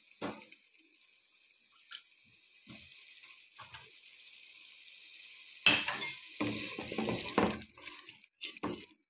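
Chicken, yogurt and masala sizzling faintly in a steel pot, with a few small clicks; a little over halfway through, a wooden spatula starts stirring, scraping and knocking against the pot as the chicken is fried in the masala.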